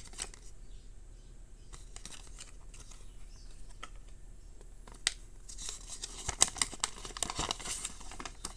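Paper and cardboard packaging being handled: a few light clicks, then about three seconds of crisp rustling and crinkling near the end.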